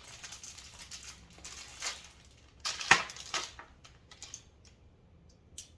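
Packaged assembly screws being handled: rustling with light clicks of small metal hardware, and one sharper click about three seconds in.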